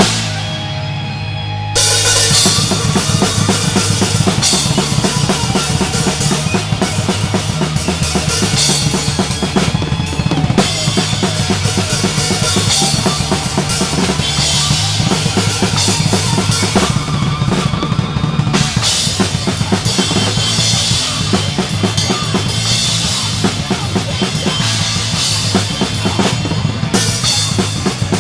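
A band playing, with the drum kit loudest: rapid bass drum and snare hits and cymbals over held bass and guitar notes. For about the first two seconds only the low notes ring, then the drums and cymbals come back in.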